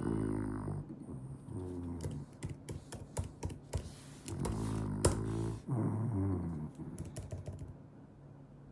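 French bulldog snoring and grunting in its sleep: four low, rough snores, each falling in pitch, with a run of sharp clicks in the middle and a single loud click about five seconds in.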